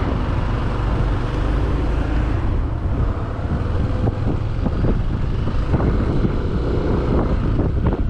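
Motorcycle being ridden: the engine runs steadily under a low rumble of wind buffeting the microphone.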